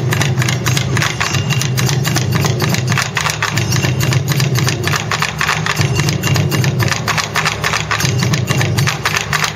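Taiko ensemble drumming: several players beat barrel-shaped taiko drums on slanted stands with wooden sticks. They play a fast, dense, unbroken run of heavy strokes.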